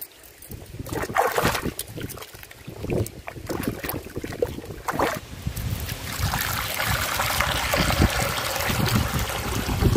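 Hands splashing and sloshing an elephant foot yam in shallow river water, in irregular bursts. From about six seconds in, a steady stream of water pours into a clay pot.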